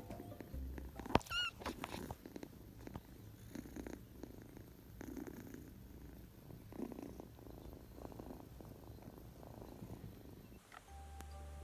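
A white kitten, thought to be a Turkish Angora, purring close to the microphone. The low, steady rumble swells and eases with each breath, about every second and a half. A sharp click comes about a second in.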